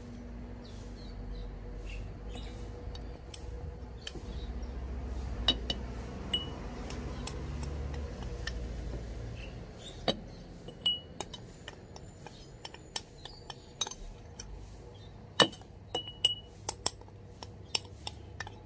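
A metal spoon clinking and scraping against a ceramic bowl and a glass jar as ground spice powder is spooned into the jar: scattered sharp clinks, some ringing briefly, over a low rumble in the first half.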